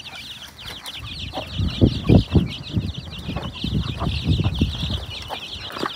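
A flock of two-to-three-week-old Sussex chicks peeping rapidly and without a break as they feed. Low soft thumps are mixed in from about a second and a half in until near the end.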